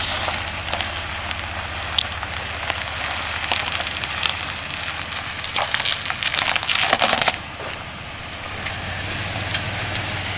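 Gritty crunching and crackling on a boat-launch ramp as a Chevrolet S-10 pickup rolls slowly down it, over the truck's low, steady engine hum. The crunching is heaviest around the middle.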